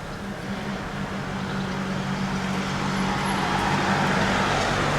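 A road vehicle approaching, its engine and tyre noise growing steadily louder, over a steady low hum.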